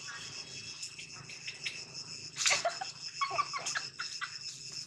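Steady high buzzing of an insect chorus, with a burst of short squeaky calls a little past halfway.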